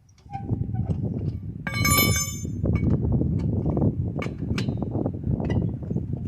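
A wrench working the lug nuts on the wheel: a continuous metallic rattle, with a bright ringing clink about two seconds in.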